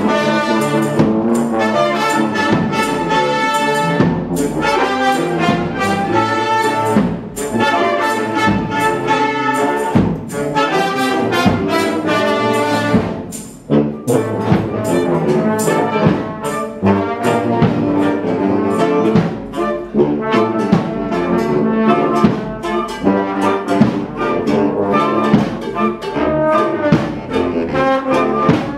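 A small marching street band playing: tuba, saxophone and flute, with regular percussive hits keeping the beat. The music dips briefly about halfway through.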